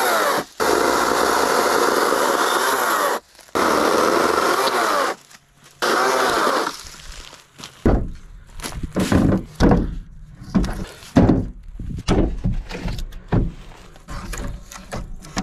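Chainsaw running and cutting firewood, its pitch rising and falling with the load, in several chopped-up bursts that end about six and a half seconds in. After that comes a run of irregular knocks and thuds as the cut wood is handled and dropped.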